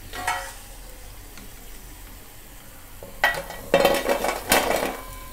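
Hot oil sizzling faintly as crisp batter-fried cauliflower florets are lifted in a wire spider strainer. About three seconds in come several clattering knocks and crunchy rattles as the strainer tips the crisp florets onto a steel plate.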